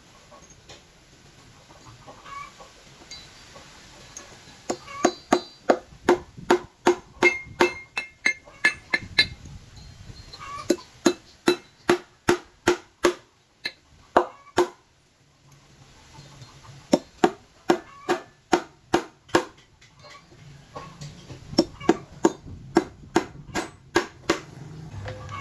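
Hammer blows on a steel bar, each strike ringing, in runs of about two or three blows a second with short pauses between runs: forging or shaping a steel bar into an arrow.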